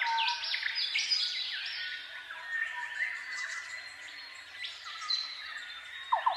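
Birdsong-like chirping and whistling: many quick notes sliding up and down in pitch, repeating as a looped background track. Loudest in the first second.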